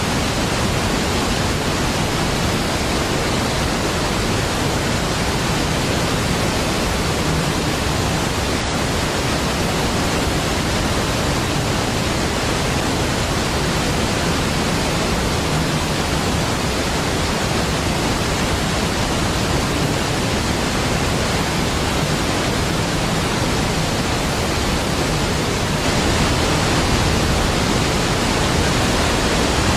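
Large waterfall pouring: a steady, deep rush of falling water with no breaks, rising a little in level a few seconds before the end.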